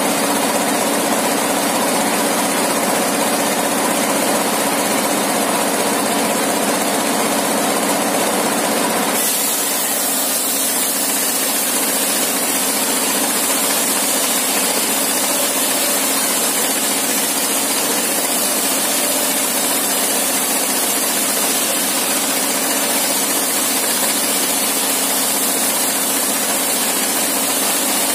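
Engine of a sawmill rig running steadily, driving a large 60-inch circular saw blade. The sound shifts about nine seconds in.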